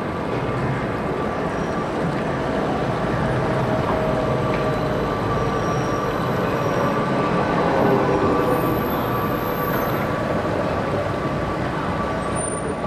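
Electric city trams moving past at close range on street track: a steady rumble with a faint whine, loudest about eight seconds in.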